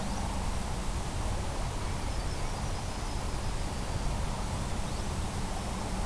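Steady hiss with a low hum underneath: static from the audio channel of an analog FPV video link as picked up at the ground receiver.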